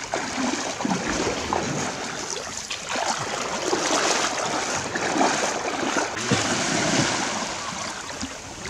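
Shallow seawater sloshing and lapping around someone wading through it barefoot, with small splashes from the steps.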